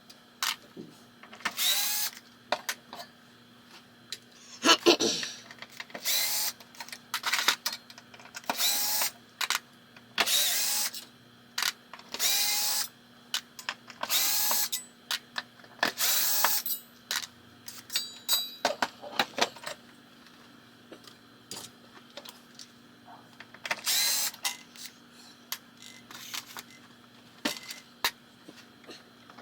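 Cordless power drill or screwdriver run in short bursts, one every second or two, backing screws out of a pinball playfield, with small clicks and clatter of screws and parts between bursts.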